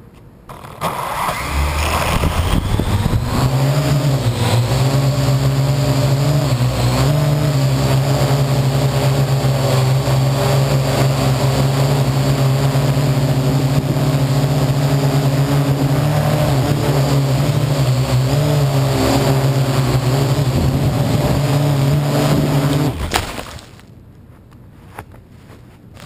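Parrot AR.Drone quadcopter's four electric rotor motors spinning up about a second in with a rising whine, then running steadily in flight, their pitch wavering slightly as it manoeuvres. Heard right at the drone from the camera mounted on it; the motors cut off abruptly near the end.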